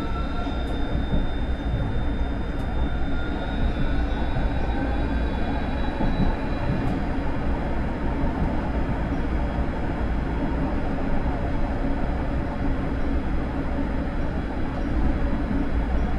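Vario LF2+ tram running along the track: a steady low rumble of wheels on rail, with the electric drive's whine gliding in pitch through the first several seconds as the speed changes, and a few faint clicks.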